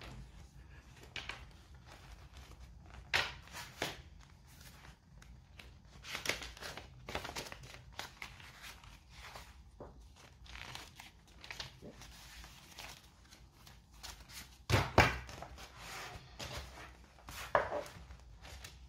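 Paper rustling and pages being turned as a handmade junk journal is handled, with scattered taps and knocks. The loudest knock comes about three-quarters of the way through.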